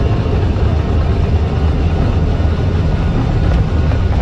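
Aircraft engines at takeoff power during the takeoff roll, heard from the cockpit as a steady, loud, deep rumble with a rushing noise over it.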